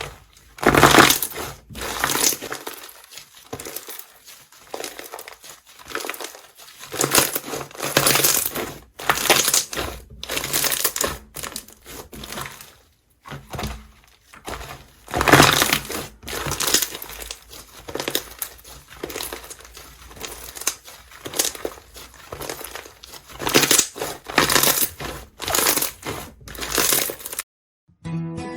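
Slime being squeezed and pressed by hand, giving irregular bursts of crackling, squishing noise with short pauses between them. The sound stops abruptly near the end.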